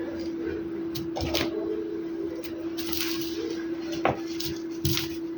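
A few sharp clicks and taps, the loudest about four seconds in, over a steady hum.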